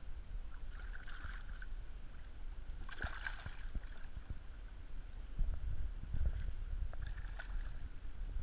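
A hooked speckled trout (spotted seatrout) thrashing at the surface beside a kayak, throwing water in short splashes. The biggest splash comes about three seconds in and another near the end.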